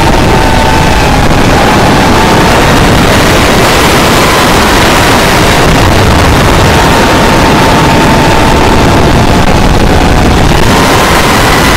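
FPV drone's electric motors and propellers running, picked up by the onboard camera with heavy wind rush: a loud, steady noise with a thin whine whose pitch wanders slightly up and down.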